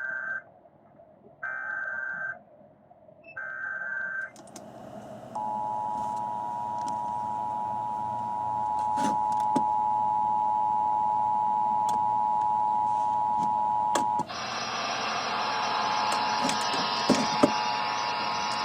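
Emergency Alert System SAME header: three bursts of warbling digital data tones, about a second each, marking the start of a new alert. About a second later comes the two-tone EAS attention signal, a steady dual tone held for about nine seconds. It cuts off into a loud hiss of static, and the two-tone attention signal returns beneath the hiss about a second later.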